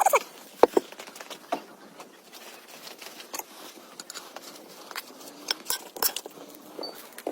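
Scattered light clicks and taps at a low level, irregularly spaced.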